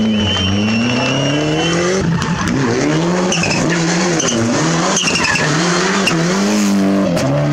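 Rally car engines revving hard through tarmac hairpins. First an Opel Adam's engine climbs steadily. About two seconds in it gives way to a Mitsubishi Lancer Evolution's engine, rising and dropping in pitch several times with lifts and gear changes, with brief tyre squeals.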